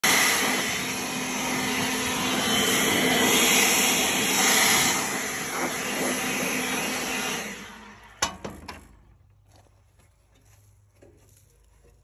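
Handheld blower running steadily as it blows sawdust off a bandsaw sawmill's frame and blade guide, then shut off about seven and a half seconds in and winding down. A few sharp knocks come as it stops, followed by faint small clicks.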